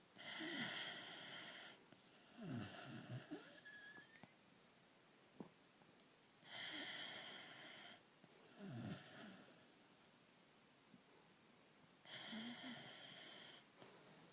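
A sleeping beagle snoring: three slow breaths about six seconds apart, each a high whistling wheeze followed by a lower, rougher breath.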